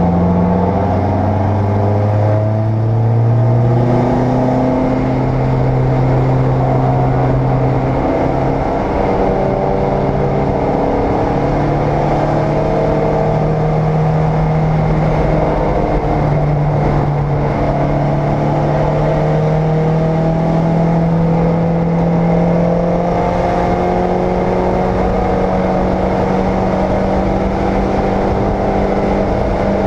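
Race car engine heard from inside the cockpit, pulling hard at high revs. Its pitch climbs slowly through long stretches of acceleration, drops sharply right at the start and dips briefly a couple of times further on.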